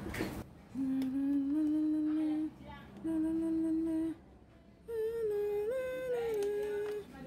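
A person humming a tune in long held notes, in three phrases with short pauses between them, the last phrase higher in pitch.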